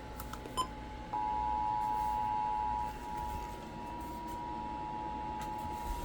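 Two-tone Emergency Alert System attention signal played by a weather radio, heard as a steady dual tone under radio hiss. It jumps louder about a second in, drops back after about two seconds, and carries on more faintly.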